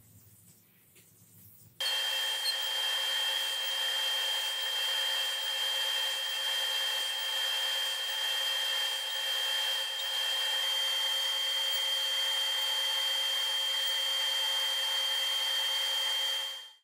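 Powermatic table saw running with a steady high whine while pine boards are cut. It starts abruptly about two seconds in and fades out just before the end.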